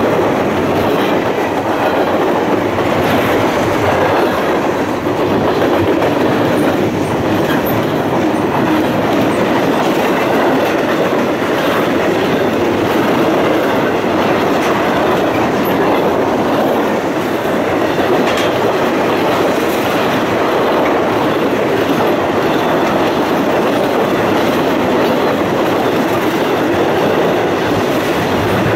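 Freight train cars, boxcars and empty rack flatcars, rolling past: a steady rumble of steel wheels on the rails with clicks over the rail joints.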